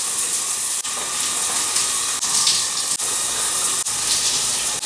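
Shower running, its spray falling on a person and the tiled stall in a steady hiss, with a few short breaks in the sound.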